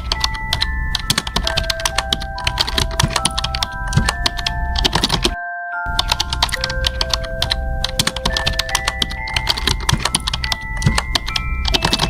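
Rapid computer-keyboard typing clicks, used as a sound effect for on-screen text, over background music of held notes. Both cut out briefly about five and a half seconds in, then resume.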